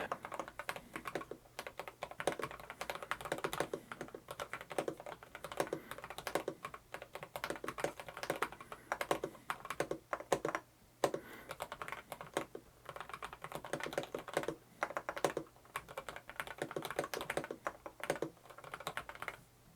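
Typing on a Varmilo APT109 mechanical keyboard with lubed yellow switches: a fast, uneven stream of keystrokes, with a brief pause about eleven seconds in.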